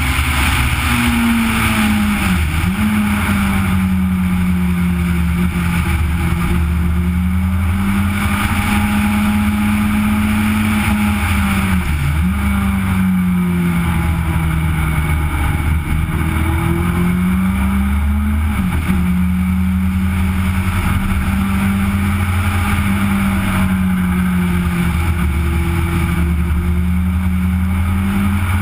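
Legend race car's engine at high revs, heard from a camera mounted on the car's nose, with a steady rush of wind and road noise. The engine note holds mostly steady, then drops sharply and climbs back three times as the driver lifts for corners.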